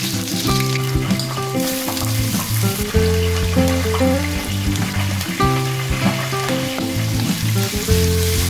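Sliced shallots, garlic and chilies sizzling in hot oil in a wok and being stirred, over background music with a bass line.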